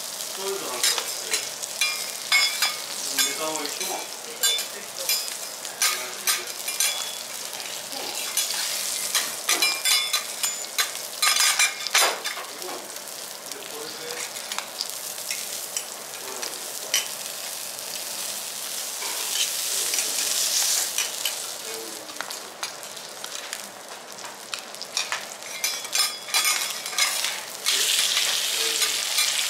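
Japanese rockfish fillet and asparagus sizzling in oil on a steel teppanyaki griddle, a steady hiss with many sharp clicks and scrapes from the chef's steel spatulas. The sizzle swells about two-thirds of the way in and again near the end as the fillet is turned.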